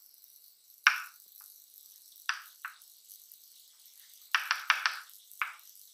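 Chalk writing on a blackboard: short scratchy strokes. One comes about a second in, two a little after two seconds, a quick run of four just past four seconds, and one more near the end.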